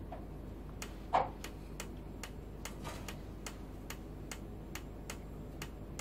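Steady, even ticking, about two and a half clicks a second, over a low steady hum, with one short louder sound about a second in.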